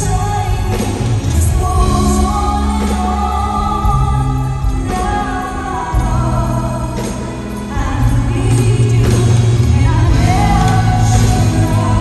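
A female singer singing live into a microphone, backed by a band with keyboards and bass. The accompaniment grows fuller and louder about eight seconds in.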